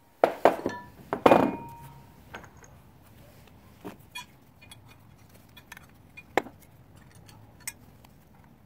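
Steel caster hardware and bolts clinking and clanking as they are picked up and handled: a few loud metal clanks with brief ringing in the first second and a half, then scattered light clicks.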